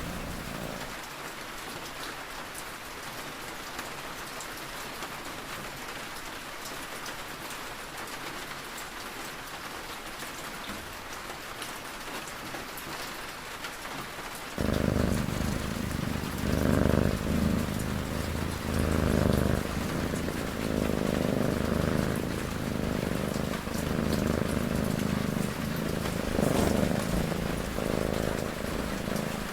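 Steady rain falling. About halfway through, a cat's snoring cuts in abruptly and carries on over the rain as low, rhythmic breaths, the loudest sound from then on.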